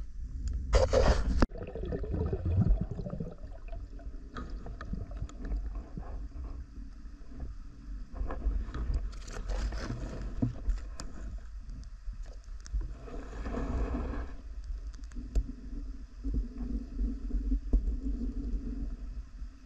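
Muffled underwater sound picked up by a camera while a freediver swims through water weeds: a steady low rumble of moving water, with a few short, louder rushing, gurgling bursts.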